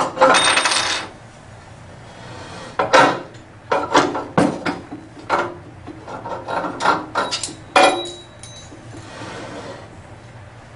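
Hand tools and small metal parts of a hydraulic actuator's pilot valve being handled during disassembly: a rasping scrape about a second long at the start, then irregular clicks, knocks and clinks.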